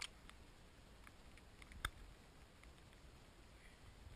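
Near silence, broken by a few faint, sharp clicks: one right at the start and a slightly louder one just under two seconds in.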